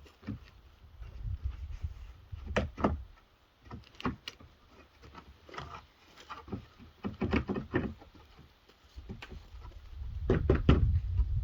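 Irregular hollow knocks and clicks of plastic shed panels and parts being handled and fitted together during assembly. A low rumble builds near the end.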